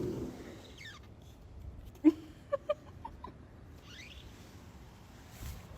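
Short animal calls: one loud call about two seconds in, followed by a quick run of short, higher notes, over a faint background hiss.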